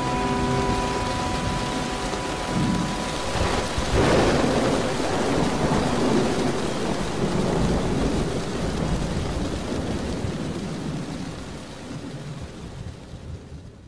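Steady rain falling, with a rumble of thunder about four seconds in; the last held notes of the music die away in the first second, and the rain fades out near the end.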